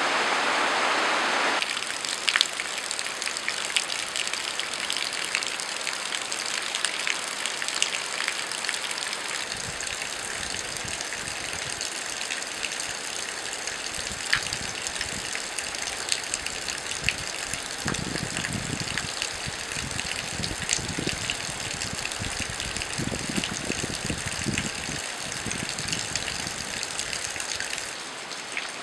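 Rushing water for about the first second and a half, then steady rain with many separate drops striking close by. Irregular low rumbles come and go in the second half.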